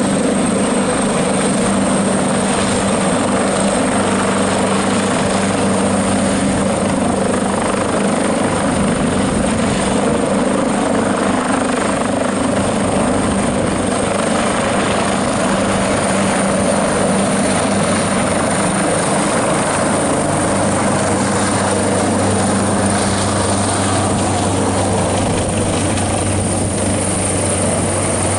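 AgustaWestland AW139 helicopter lifting off and climbing away, its twin turboshaft engines and five-blade main rotor at takeoff power. It makes a steady loud rotor drone with a thin high turbine whine.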